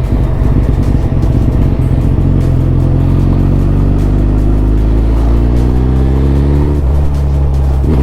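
Suzuki Hayabusa's inline-four engine pulling hard under acceleration, its note climbing steadily for several seconds. Near the end it breaks off briefly for an upshift, then starts climbing again.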